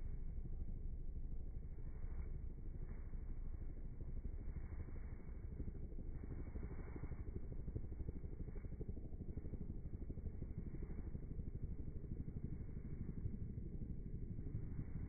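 Steady low drone of a light aircraft's engine and rushing air, heard from on board in flight.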